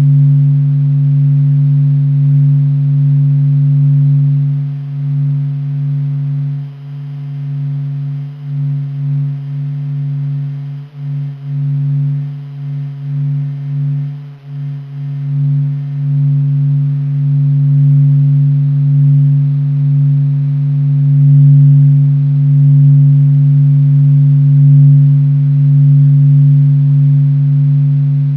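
Low, steady droning hum of the Sun's sonified vibrations: NASA solar oscillation data sped up into the hearing range. A strong tone sits near 150 Hz with a weaker one above it, and the loudness wavers and dips for several seconds in the middle.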